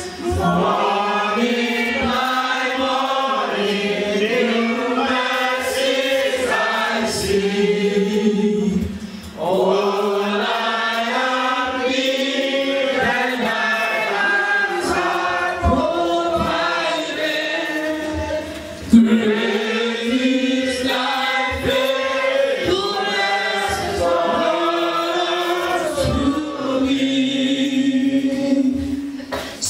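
A congregation of men and women singing a hymn together from hymn sheets, in long phrases with brief breaks between lines.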